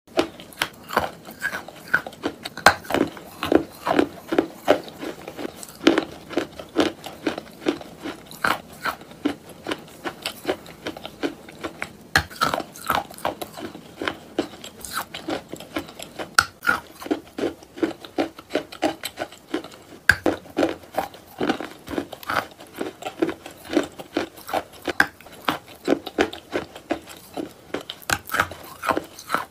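Close-up biting and chewing of a crumbly white block of clay: a dense run of crisp crunches and clicks, several a second.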